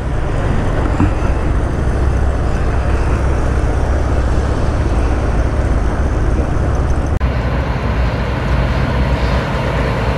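Steady road and traffic noise with a deep rumble, heard from a vehicle riding close behind a heavy lowbed truck. The sound changes abruptly about seven seconds in.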